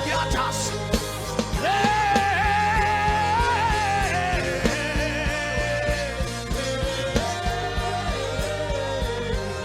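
Worship band music with a steady drum beat. A long held melody line, sung or played, runs over it about two seconds in and again near the end.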